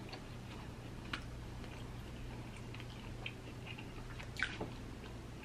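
A person chewing food quietly, with a few faint mouth clicks, over a faint steady hum.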